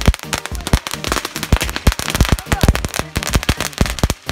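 A ground firework crackling and popping, a rapid, irregular run of sharp cracks several times a second.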